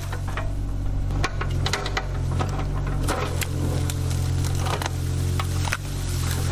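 Mini excavator's diesel engine running steadily under load, with many sharp cracks and snaps of roots and wood breaking as its bucket shoves and lifts out a tree stump.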